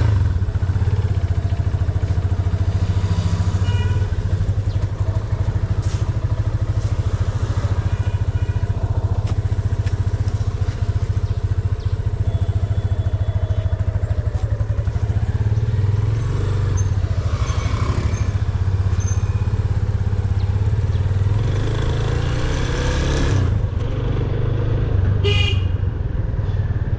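Yamaha motorcycle engine running steadily at low riding speed, its exhaust a continuous low, rapid pulsing. Near the end there is a short horn toot.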